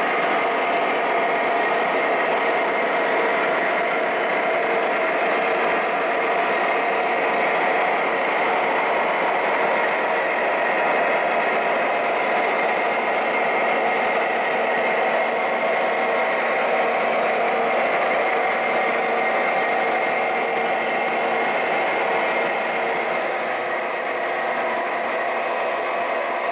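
Onboard sound systems of four O gauge MTH Premier diesel locomotives playing a steady diesel engine drone with several held tones as the locomotives pull a long freight train.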